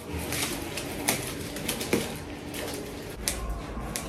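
Kitchen scissors snipping through the crisp sesame-topped crust of freshly baked barbari bread, giving irregular crackling and crunching clicks, with a few sharper snips along the way.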